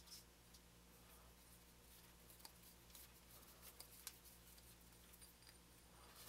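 Near silence: a faint steady hum, with a few faint soft ticks from hands handling a small aluminum yo-yo while winding its string.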